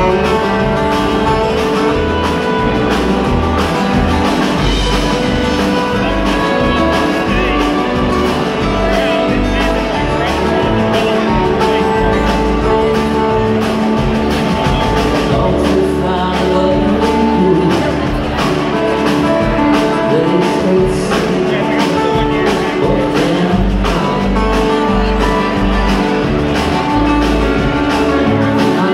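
Live band music from an amplified string band playing through the hall's PA: acoustic guitars and upright bass over a steady drum beat, loud and full throughout.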